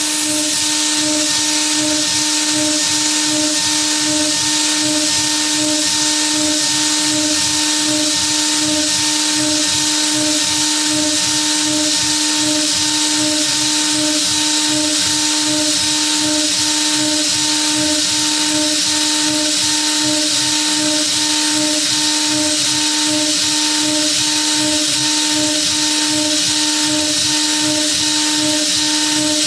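Spindle of a DIY CNC router running steadily while milling aluminium: a constant whine under a steady hiss.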